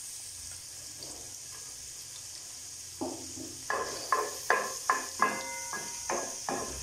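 Chopped garlic sizzling faintly in oil in a nonstick frying pan. From about three seconds in, a spatula stirs it, with a quick series of scrapes and knocks against the pan.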